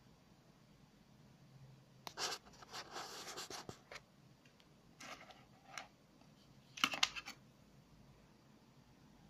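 Rustling and scraping from handling a plastic zip bag of electronic parts and a bare circuit board on a wooden table, in three short bouts, the last the loudest.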